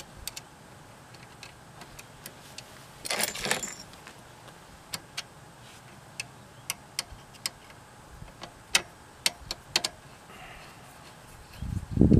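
Small metallic clicks and taps of bolts and mounting hardware being handled and fitted by hand into a generator's metal frame, with a short rattle about three seconds in and a louder low rumble at the very end.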